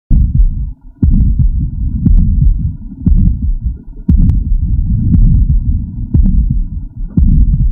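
Heartbeat with a murmur, about one beat a second, with a rough whooshing sound filling the gap between the thuds: the murmur of subaortic stenosis.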